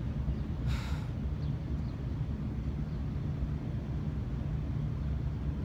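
Steady low rumble of street traffic, with a short hiss about a second in.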